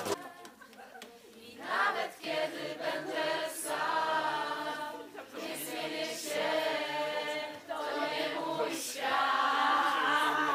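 A group of people singing together around a campfire, the sung phrases starting about two seconds in after a brief quiet moment.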